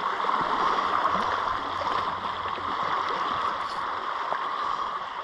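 Sea water washing and gurgling around shore rocks, a steady rushing.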